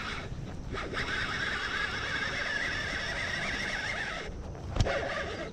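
Baitcasting reel's spool whining through a cast, a steady, slightly wavering high whine lasting about three seconds that stops abruptly as the lure lands, followed by a single click as the reel is engaged. The whine is the typical sound of a Shimano DC reel's digital cast control.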